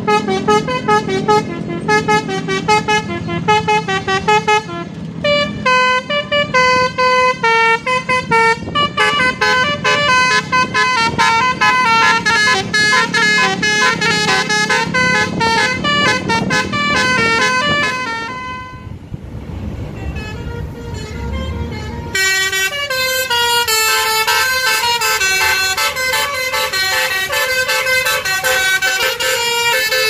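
Telolet basuri multi-tone musical horns on Jetbus coaches playing fast melodies of short stepped notes. About 19 seconds in, the horn pauses for a few seconds of low engine and road rumble, then another bus's horn melody starts.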